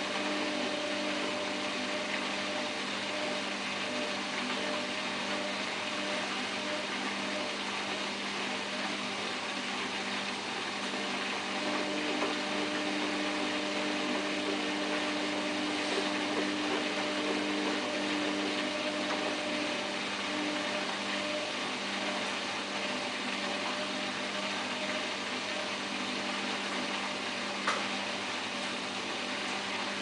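Samsung WF8804RPA front-loading washing machine in its final spin, the drum turning at a steady high speed with a steady motor hum and whine over a rushing hiss. A single short click near the end.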